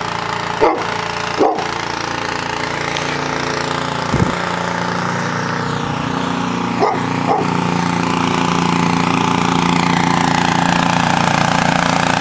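A gasoline snowblower engine runs steadily, growing louder about two-thirds of the way in, while a dog barks a couple of times early on and twice more about seven seconds in.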